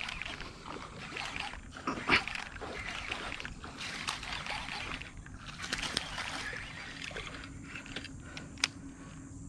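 Footsteps through wet grass and shallow marsh water: irregular swishes and light splashes, with a few sharper clicks.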